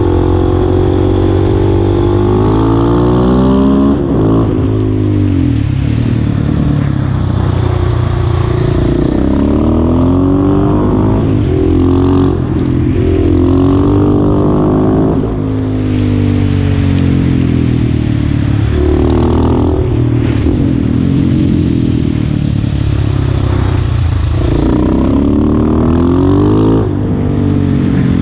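Husqvarna 701 Supermoto's single-cylinder engine pulling hard at full throttle, heard from on board: the engine note climbs, drops back and climbs again every few seconds as the bike accelerates, shifts and slows for corners.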